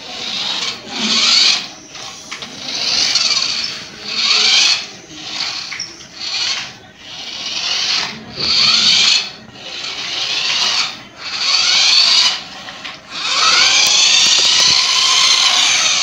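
Small electric drive motor and gears of a toy RC car whining as it is driven in short bursts, the pitch rising and falling as the motor speeds up and slows. There are about eight bursts of roughly a second each, then a longer run of about three seconds near the end.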